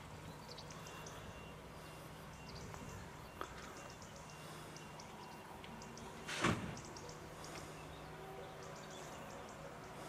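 Quiet outdoor background with faint scattered high chirps and ticks, broken once, about six and a half seconds in, by a short loud puff of noise.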